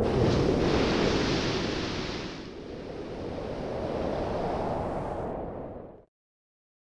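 Rushing, wind-like noise sound effect laid under an intro logo animation: loud at first, dipping, swelling again, then fading out and cutting to silence about six seconds in.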